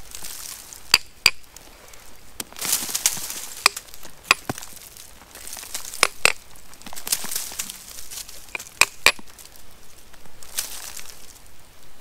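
Hammer striking rock in four quick pairs of sharp, ringing chinks. Between the pairs comes scraping and crumbling as moss, soil and grit are worked loose from the rock face.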